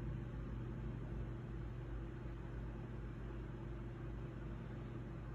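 Steady low hum with a faint hiss, unchanging throughout, with no distinct events.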